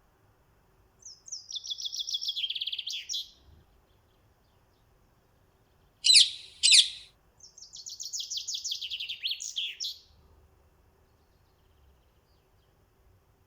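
A small songbird singing: two long phrases of rapid trilled notes that step down in pitch near their ends, about a second in and again about halfway through, with two loud sharp notes between them, the loudest sounds here.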